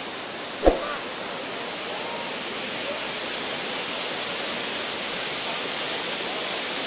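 Steady rush of flowing water, with faint distant voices and one sharp knock about half a second in.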